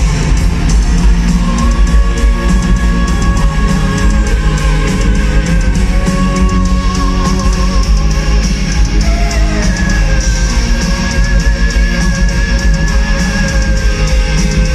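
Symphonic metal band playing live through an arena PA: distorted guitars and drums under long held melody notes that waver slightly in pitch.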